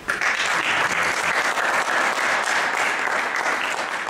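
Audience applauding: a dense clapping sound that starts suddenly and holds steady, easing off slightly near the end.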